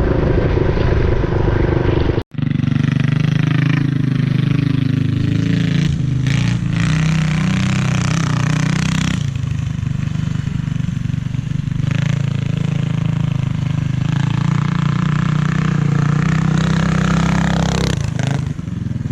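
Mini bike's small single-cylinder four-stroke engine running, its speed rising and falling as it is ridden, with a sudden brief cut-out about two seconds in.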